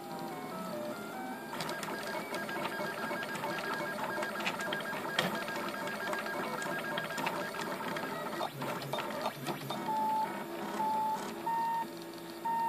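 RepRap 3D printer's stepper motors whining in steady tones that jump from pitch to pitch as the print head moves, with fine ticking through the middle. Near the end a single note repeats on and off about once a second as the head shuttles back and forth.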